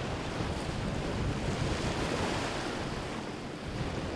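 Ocean waves breaking and washing in rough water, a steady rushing surf that swells about two seconds in, with wind buffeting the microphone.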